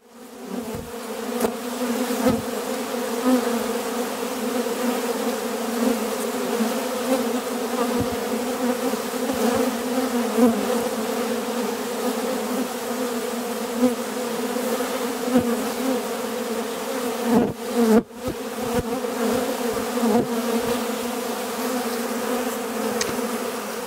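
A dense swarm of honeybees buzzing, a loud, steady hum of many wings, as they work over extracted honey frames in a frenzy cleaning out the leftover honey. The hum dips briefly about three-quarters of the way through.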